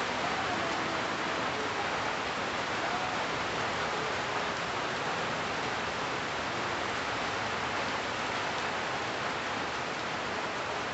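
Steady rain falling on the leaves of trees, an even, unbroken hiss.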